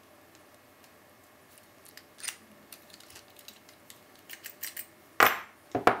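Small metallic clicks and scrapes of a pick turning the discs inside a cheap disc-detainer padlock, followed near the end by two loud metal clacks as the lock comes open.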